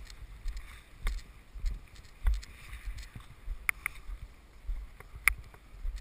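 Wind buffeting the microphone in uneven low gusts, with a few sharp clicks and knocks from gear being handled, two close together near the middle and one more a little over a second later.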